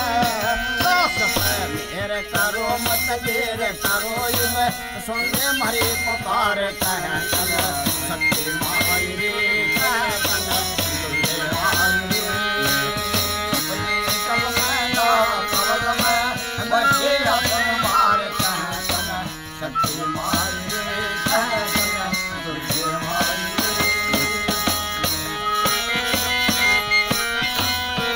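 Instrumental passage of a Mata ki bhent devotional song. A bamboo flute (bansuri) plays a wavering, ornamented melody over held harmonium chords, and a hand tambourine's jingles keep a steady rhythm.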